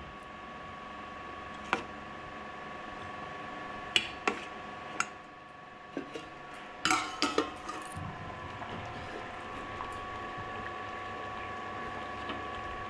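A steel spoon stirring a thick yogurt curry in a steel pot, clinking against the pot several times in the first half, over a steady background hum.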